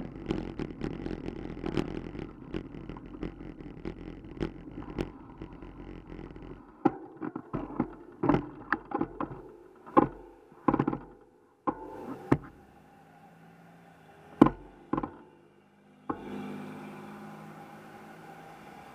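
Road rumble and rattling picked up by a camera on a moving bicycle. About six seconds in it settles into a dozen loud, irregular knocks and clicks on the bike and camera mount. Near the end there is a steady hum of passing car traffic.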